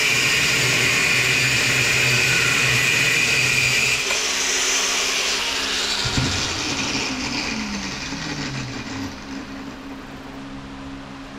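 Bench grinder grinding down a steel bolt, a steady high grinding noise for about four seconds. The grinding then stops, there is a knock about six seconds in, and the grinder's motor hum falls in pitch as it winds down.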